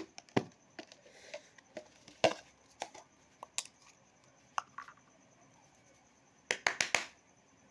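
Small plastic containers being handled: a jar and a little tobacco tin opened and set down, with scattered clicks and knocks. Near the end, a quick run of about five sharp hand slaps, as when chewing tobacco rubbed in the palm is patted and dusted off.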